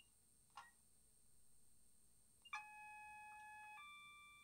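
Two-tone train horn played by a Legomanbiffo DCC sound decoder through the small ultra flat bass enhanced speaker in a Bachmann Class 350 model: a lower note for about a second, then a higher note held past the end, after a faint click and a low hum.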